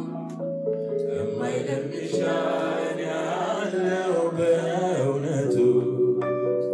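A man singing a slow worship song into a handheld microphone over held keyboard chords, his voice gliding between notes; the chords change near the end.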